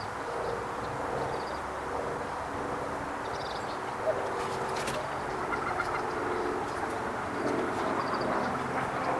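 Outdoor waterside ambience: a steady background noise with repeated short calls from birds and a few faint high chirps.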